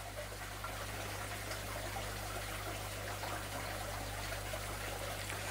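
Steady trickling of running water with a low electrical hum underneath.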